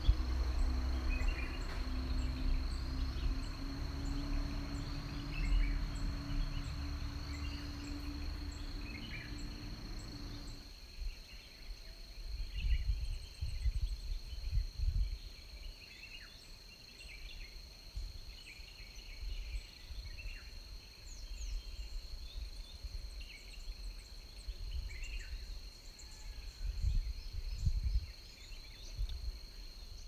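Hillside forest ambience: a steady high-pitched insect drone, like crickets, under many short scattered bird calls, with gusts of wind rumbling on the microphone. A low hum underlies the first third and cuts off abruptly.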